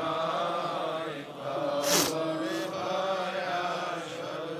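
A sustained, chant-like vocal drone under a Bengali gojol, held steady between the lead singer's lines. A short breathy hiss comes about two seconds in.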